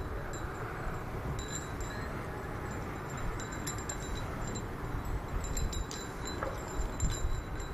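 Steady low rumble with faint, intermittent high tinkling and small clicks, clustered about a third of the way in and again near the end.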